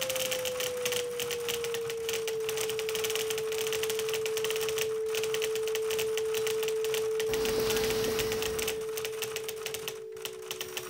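Live electronic sound played from laptops: one pure tone that glides slowly downward for about two seconds and then holds steady, over a dense, irregular crackle of fast clicks like static. A brief low rumble swells in about seven seconds in.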